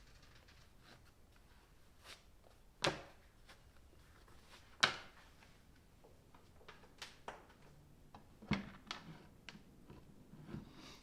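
Handling knocks and clicks of a disc being changed by hand on a Merlin2 mini angle grinder. There are two sharp knocks about three and five seconds in, followed by several lighter taps and clicks.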